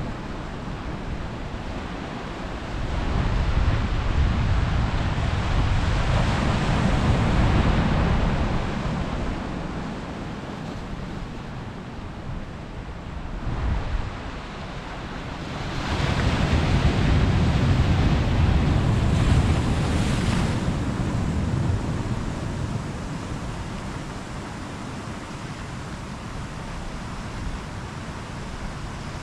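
Sea waves surging and breaking over a rocky shore, swelling loud twice for several seconds at a time, a few seconds in and again about halfway through, with wind rumbling on the microphone.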